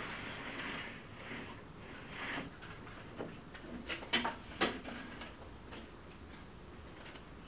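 Plastic vertical window blind slats rustling and clacking as they are pushed apart by hand, with soft swishes first and then a quick cluster of sharp clicks a little past the middle.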